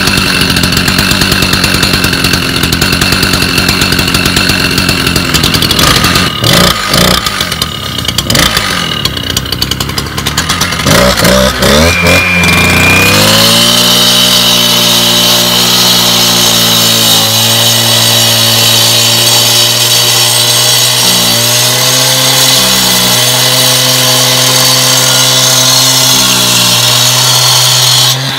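Stihl TS350 cut-off saw's two-stroke engine running at idle shortly after a cold start, uneven for a few seconds, then revving up about 13 seconds in and held at steady high speed as its disc cuts wet through a concrete fence post. The engine note dips slightly several times as the cut bites.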